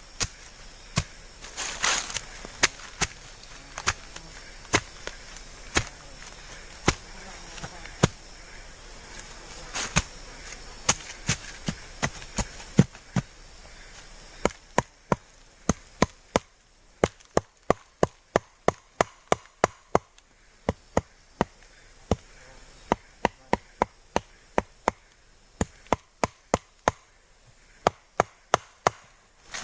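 Repeated sharp chopping knocks, sparse at first and then quicker from about halfway, around two to three a second, over a steady high hiss.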